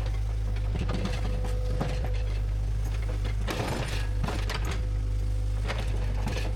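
Bulldozer's diesel engine running with a steady low drone, with irregular metallic clanks and rattles from its tracks and blade as it works the ground.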